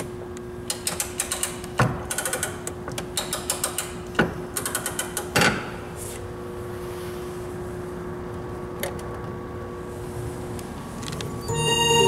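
Quick runs of ratchet clicks from the winding mechanism of a Swiss cylinder music box, several short runs over the first five seconds or so. Near the end the box starts to play, its reed organ sounding sustained notes.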